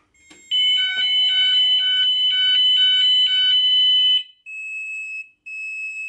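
Gent fire alarm sounders going off from a manual call point, a loud two-tone alternating alarm. The sounders are silenced about four seconds in, leaving a quieter steady beep pulsing on and off about once a second from the control panel.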